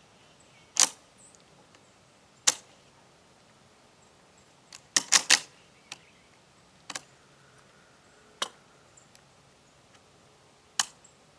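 Kel Tec PR-5.7 pistol firing 5.7×28 mm FN rounds: about eight sharp shots at uneven intervals, three fired in quick succession about five seconds in.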